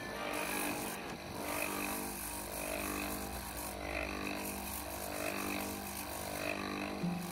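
Small electric gem-grinding machine running, with a moss agate cabochon on a dop stick being sanded against its spinning sanding wheel. Background music plays over it.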